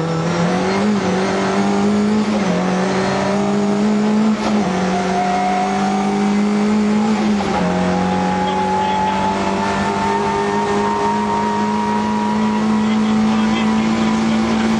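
Lada VFTS rally car's engine at high revs on a stage, heard inside the cabin. It is held hard in the gears, the pitch dropping at shifts about two and a half and seven and a half seconds in, then climbing slowly again.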